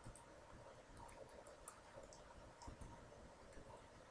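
Near silence with a few faint, scattered clicks of a computer keyboard and mouse.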